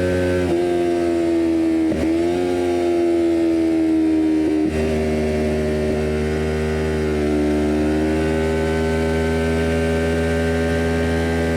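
2020 Kawasaki Ninja 400's parallel-twin engine running through a full cat-delete Jeskap exhaust, heard onboard while riding. It holds a fairly steady pitch, with brief dips about half a second, two seconds and nearly five seconds in.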